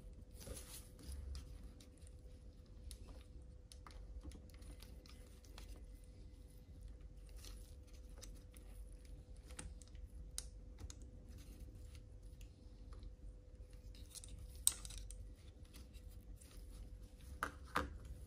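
Faint, scattered clicks and scrapes of small tools working on the parts of a DJI Mini 3 Pro drone gimbal, with one sharp click about three-quarters of the way through and a few louder clicks near the end, over a faint steady hum.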